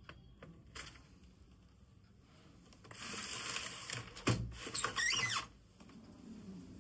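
Adler Junior 12 manual typewriter being handled: a few light clicks, then about a second of rasping slide, a single knock, and a second, squeakier rasp that stops abruptly.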